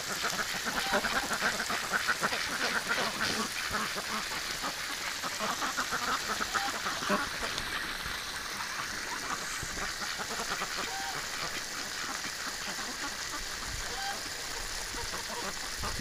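A flock of domestic ducks, mostly white Pekins, quacking busily. The calls are thickest in the first half and thin out later.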